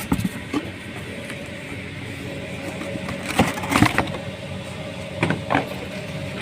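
Packaging being opened by hand: crackling and rustling in two short bursts, about three seconds in and again past five seconds, over a steady background hum.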